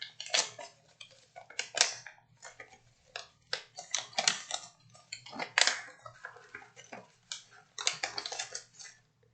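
Mail envelope being opened by hand: irregular paper tearing, crinkling and rustling in quick clusters.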